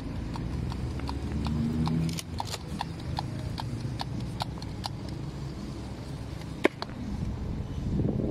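A regular clicking, about three sharp clicks a second, that stops about five seconds in, followed by a single louder click, over a steady low rumble.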